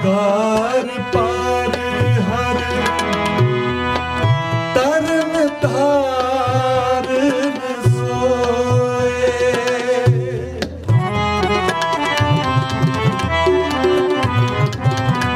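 Sikh kirtan: harmoniums sustaining reedy chords and melody, with a tabla pair keeping a steady rhythm, under a man's voice singing a gliding, wavering melodic line.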